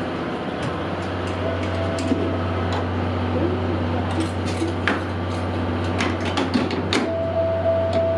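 Two coupled Tobu 500 series Revaty trains standing at a platform: a steady low hum from the trains' equipment, with scattered sharp clicks and clanks and a steady whine that comes in twice.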